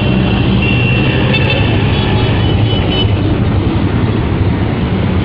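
Busy road traffic: a steady rumble of passing cars and trucks, engines and tyres, with a thin high tone sounding from about a second in for about two seconds.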